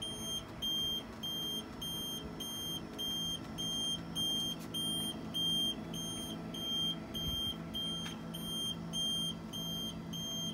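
A high electronic beeper sounding in short, even beeps about twice a second, over a steady low hum.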